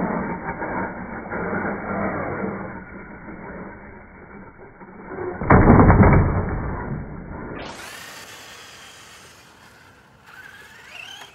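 Slowed-down, low and muffled sound of a radio-controlled truck jumping, with a heavy thud as it lands about five and a half seconds in, the loudest moment. Later, at normal speed, the sound is faint, with a rising whine near the end.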